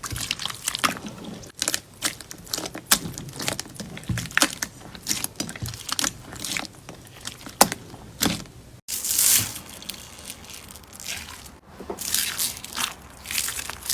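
Slime being squeezed and poked by hand close up, giving a dense run of irregular sticky clicks, pops and crackles. The sound cuts out abruptly twice, briefly, in the second half.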